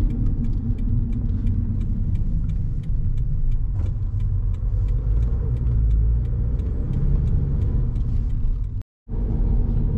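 Steady low rumble of a car's engine and tyres heard from inside the cabin while driving. It cuts out completely for a moment near the end.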